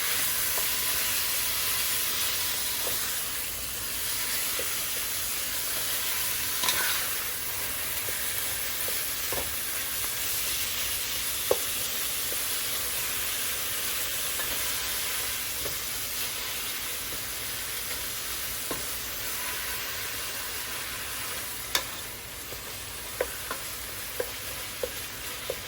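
Ground turkey sizzling in hot oil in a pot while it is stirred and broken apart, the sizzle easing slowly. There are a few sharp clicks of the utensil against the pot, several of them near the end.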